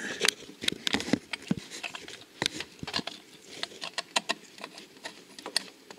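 Irregular small clicks and knocks of a wrench and metal parts being handled while the engine's oil screen is unscrewed and pulled out.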